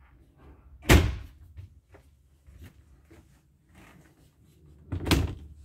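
A door thudding twice, about four seconds apart, with faint knocks and handling sounds between.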